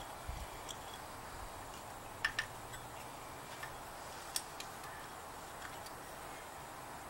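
A few small sharp metallic clicks and taps as a VW Beetle speedometer's metal housing is handled and turned over, with a close double click a little after two seconds and the sharpest click about four seconds in, over a steady faint hiss.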